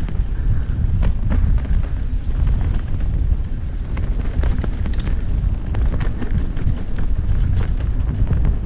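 Wind rumbling over a helmet-mounted GoPro's microphone as a mountain bike rolls down a trail, with scattered clicks and rattles from the bike over rough ground.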